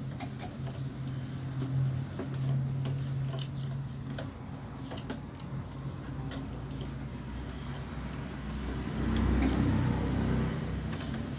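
Scattered light clicks and taps, typical of parts being handled and unscrewed while a window air conditioner is taken apart, over a steady low hum. A louder low rumble swells about nine seconds in and fades.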